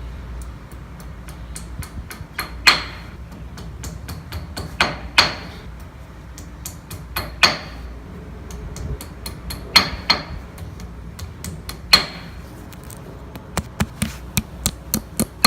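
Hammer blows, about one every two seconds, each with a short metallic ring. Near the end comes a quicker run of light clicks.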